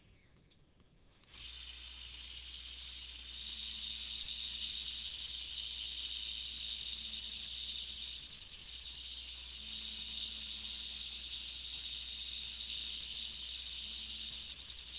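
Taig CNC mill running a program cut. The machine starts about a second and a half in and then runs steadily with a high hiss over a low hum. A fainter low tone comes and goes twice as the stepper-driven axes move.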